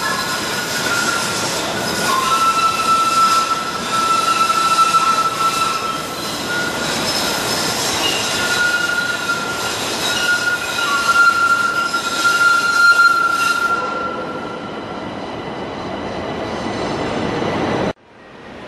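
Two-car light rail train running past on a curved track, its wheels squealing in long high tones that come and go over the rumble of the cars. The squeal and rush die away about fourteen seconds in, and the sound breaks off abruptly near the end.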